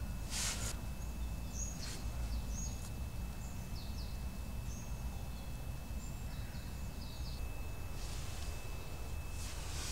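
Woodland ambience: small birds calling with short, high chirps scattered through, over a steady low rumble, with a few brief rustles.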